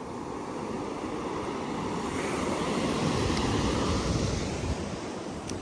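Sea surf: a wave rolls in and washes up, swelling to its loudest in the middle and easing off near the end.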